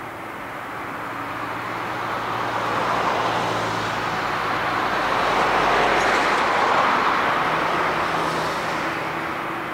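Boeing 747-8's four GEnx turbofan engines at take-off thrust as the airliner rotates and lifts off: a broad jet roar that swells over several seconds, is loudest about two-thirds of the way through, then begins to ease off.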